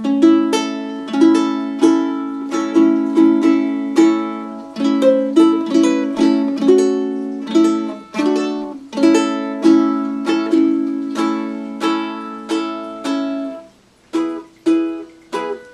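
Tenor ukulele with a Curly Redwood top and padauk back and sides, strummed in a steady chord pattern, each strum ringing on. The playing breaks off briefly near the end, then strumming starts again.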